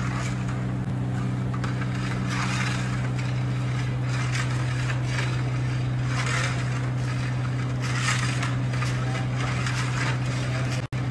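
A steady low mechanical hum runs under short swishing rushes every second or two, as halwa syrup boils and is stirred with a metal rod in a large copper pot. The sound drops out for a moment near the end.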